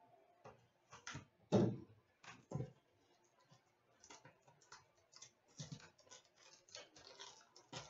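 Trading-card box and pack being handled and opened: scattered light clicks, taps and crinkles of cardboard and wrapper, with two louder knocks in the first few seconds and quicker small clicks later on.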